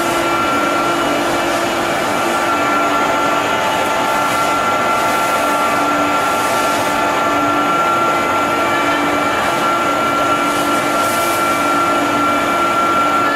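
Flying elephant amusement ride's machinery running: a steady motor whine with an even rushing noise underneath.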